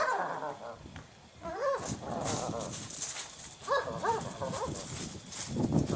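Dogs barking in short runs of barks, with pauses between the runs.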